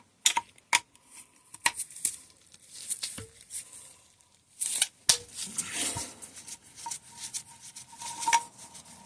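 Metal tools clicking and clinking against a bicycle suspension fork, with a faint ringing tone, as the bottom bolt on the other fork leg is worked on.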